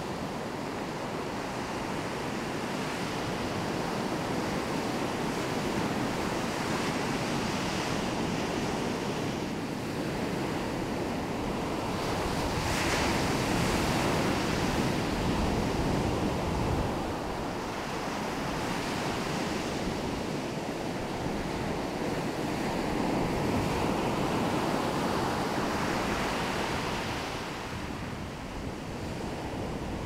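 Ocean surf on a sandy beach: waves breaking and washing up the shore one after another. The rushing swells and ebbs, loudest about halfway through.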